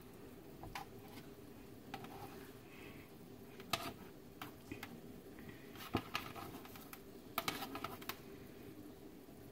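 Light scattered clicks and taps of hands wrapping bacon around stuffed jalapeño halves on a metal baking sheet. There is a sharper click about four seconds in and a quick run of clicks about a second and a half before the end.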